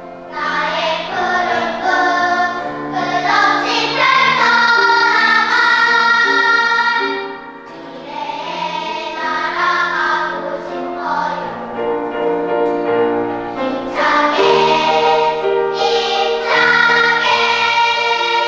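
Choir singing in parts, with a brief break between phrases about eight seconds in.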